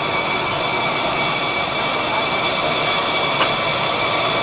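GMS micromailer plow-folding table with inline perforating and scoring running at speed as sheets feed along its belts: a steady mechanical whir with a thin high whine over it, and a single faint click about three and a half seconds in.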